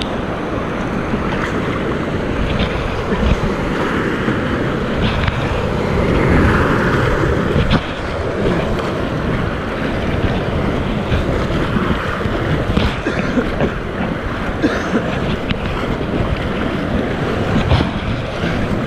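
Whitewater rapids rushing and churning around an inflatable kayak, with paddle blades splashing into the water. It is loudest about six to eight seconds in.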